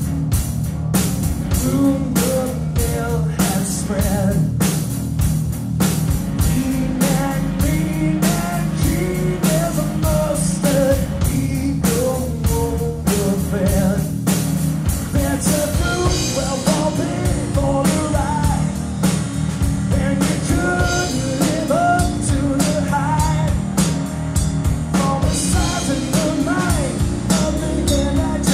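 Live rock band playing through a PA: electric guitar, bass guitar and a drum kit keeping a steady driving beat.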